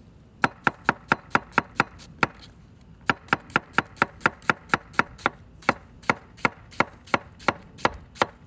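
Kitchen knife slicing a red onion into thin ribbons on a wooden cutting board: quick, even chops about four to five a second, with a short pause about two seconds in.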